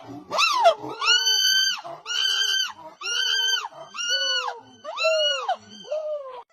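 A monkey giving a series of about seven high-pitched, squealing calls, roughly one a second, each a held note that rises and then falls away.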